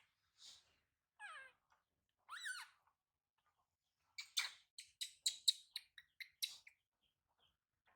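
Newborn animal calling: a squeal falling in pitch, then one that rises and falls, then, about four seconds in, a quick run of about nine short, sharp squeaks.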